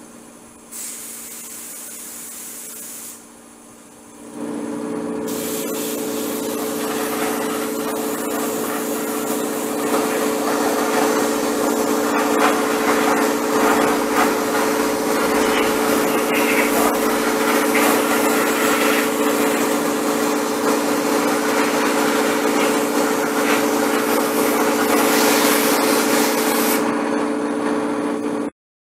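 Spraying equipment running: a brief hiss about a second in, then from about four seconds a motor's steady hum under a loud spray hiss. The hiss grows louder about ten seconds in and cuts off abruptly near the end.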